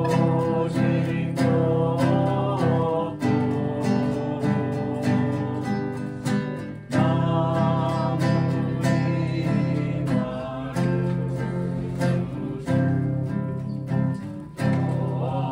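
Music: an acoustic guitar strummed in a steady rhythm, with a wavering melody line over the chords.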